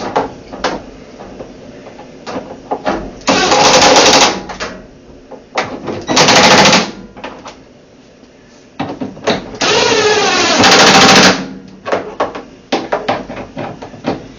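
Power driver running three times, briefly twice and then for a couple of seconds, driving the bolts that join the washer's two tub halves, with small clicks and knocks of handling in between.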